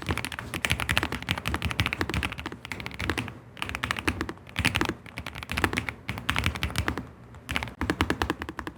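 Fast typing on a low-profile mechanical keyboard: a dense run of key clicks and clacks with a few brief pauses.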